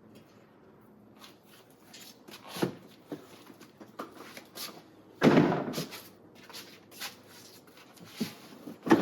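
Hard plastic Husky Build-Out toolboxes being handled: scattered clicks and light knocks, with a heavy thud about five seconds in and another near the end.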